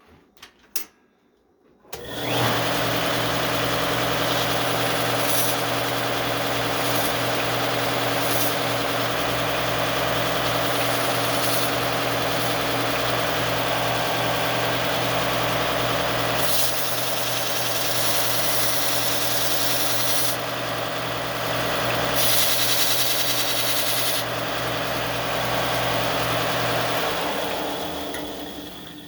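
Belt grinder starting up about two seconds in and running steadily with a hum, fitted with a Scotch-Brite finishing belt for the steel flint striker, with several brief surges of hiss along the way. The motor shuts off and spins down near the end.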